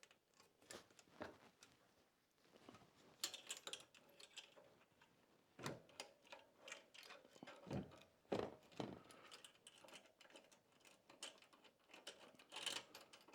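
Faint, scattered clicks and light knocks of metal and plastic bike-trailer parts being handled and fitted onto the frame by hand.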